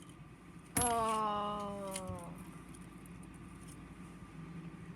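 A sharp blow as the LED clock display is smashed, followed by a ringing pitched tone that sinks slightly and fades away over about a second and a half.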